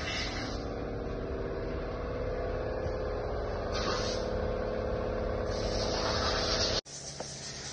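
A steady machine hum over low rumble and hiss, cut off abruptly about seven seconds in and followed by a quieter hum.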